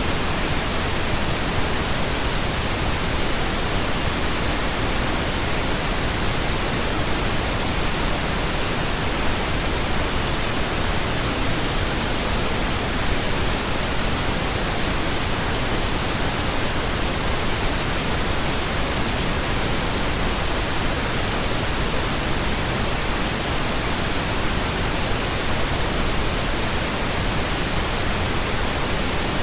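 Pink noise: a steady, even hiss spread from deep to high pitches, with no change in level.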